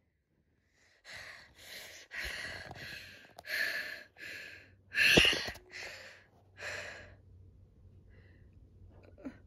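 A run of about eight short, breathy huffs in quick succession, with a sharp knock about five seconds in.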